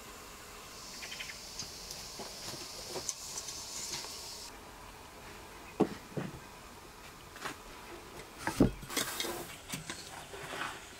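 Metal spoon knocking and scraping on dough and a wooden board as walnut filling is dropped onto pastry triangles: a few scattered soft knocks, the loudest about two-thirds of the way in. Before that, a faint high hiss cuts off abruptly about four seconds in.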